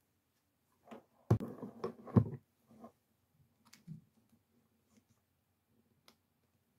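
Clicks and scraping of a small screwdriver working against the plastic of a Mazda key fob, probing for the release catch. A dense run of handling clicks about a second in, with two sharp loud clicks, then only occasional faint ticks.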